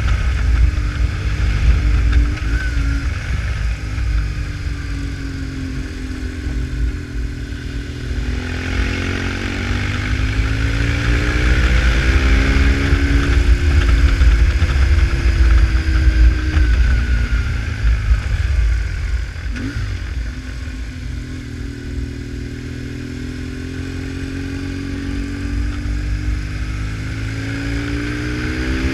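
BMW R1150GS boxer-twin engine on the move, its revs rising and falling as the rider accelerates and eases off, with a drop in revs around two-thirds of the way in. Heavy wind rumble on the microphone runs underneath.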